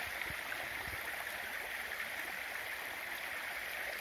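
Steady, even rushing hiss of outdoor background noise, with no distinct events.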